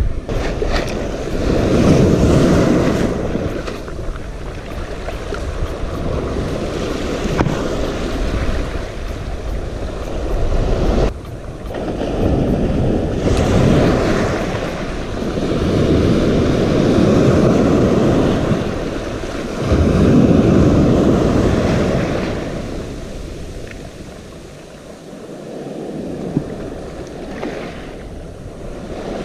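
Sea waves surging and washing onto the shore, swelling and falling away every few seconds, with wind buffeting the microphone.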